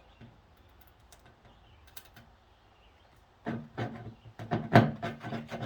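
Mostly quiet, then a quick, dense run of clicks and knocks starting about three and a half seconds in, like hard objects being handled and tapped together.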